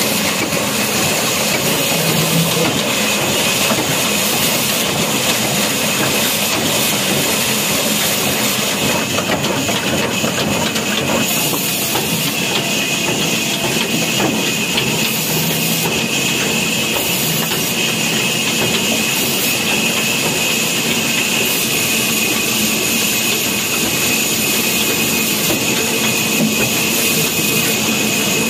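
Old Ruston diesel engine with a large flywheel running steadily, belt-driving a wood-cutting band saw, a continuous mechanical din with a steady high whine over it.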